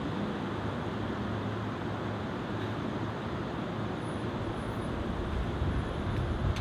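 Steady rumbling background noise with a low hum and no distinct events.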